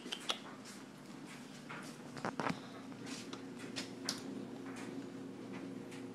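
Quiet room with scattered soft rustles and light clicks, a few bunched together about two seconds in, over a faint steady hum.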